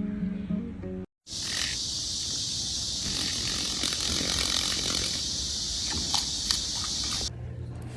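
Cicada buzzing loudly in a steady high-pitched drone for about six seconds, cutting off suddenly near the end. Guitar music plays for about the first second.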